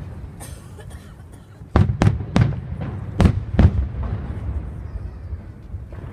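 Fireworks exploding: five sharp bangs in quick succession about two seconds in, over a steady low rumble of further bursts.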